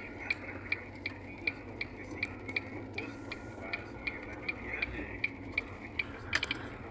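A car's turn-signal indicator ticking steadily, about three ticks a second, inside the cabin over the low hum of the moving car. Near the end there is a short flurry of clicks, and then the ticking stops.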